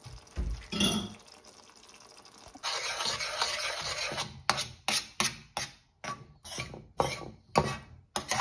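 Metal spoon stirring thick curry gravy in a stainless steel pan, scraping the pan: a brief knock under a second in, then a continuous scrape, then quick back-and-forth strokes about two a second.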